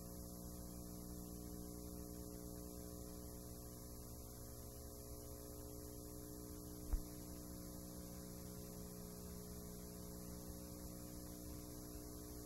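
Steady mains hum with a high hiss from a VCR playing a blank, unrecorded stretch of VHS tape, with a single click about seven seconds in.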